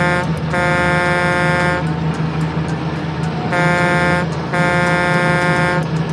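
Truck sound effect: a diesel engine running with a steady low hum while an air horn honks in short and long blasts in turn, a long blast, a short one and another long one. It cuts off suddenly at the end.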